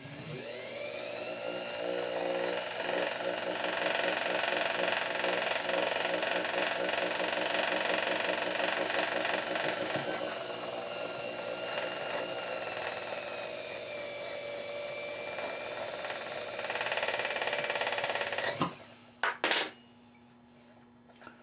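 Watchmaker's lathe running, spinning up at the start and then turning steadily while a new pivot on a clock wheel's arbor is filed smooth. The motor cuts off suddenly near the end, followed by a few sharp clicks.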